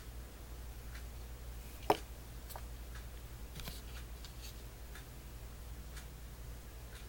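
A clock ticking faintly about once a second over a steady low hum. A single sharp click comes about two seconds in, and light rustling and clicking follow a little later as a small cardboard perfume sample card is handled and turned over.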